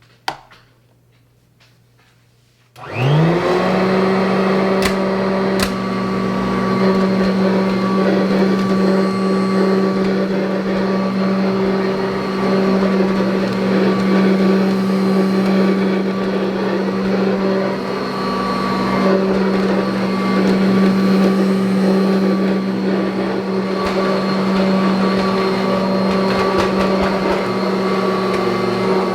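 1984 Kirby Heritage upright vacuum cleaner being switched on: a sharp click near the start, then about three seconds in the motor spins up with a quick rising whine and settles into a steady, loud running hum.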